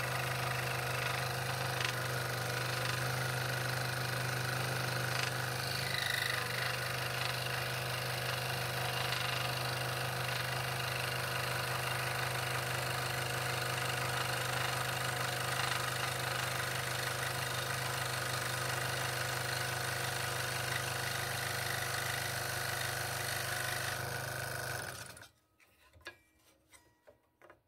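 Scroll saw running steadily with its blade cutting through a wooden blank, a constant motor hum with the blade's rapid chatter. About 25 seconds in the saw is switched off and winds down, leaving a few faint clicks and rustles.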